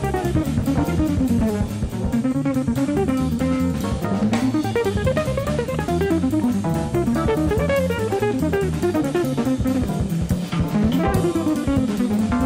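Background music with a steady drum beat and a melody that rises and falls.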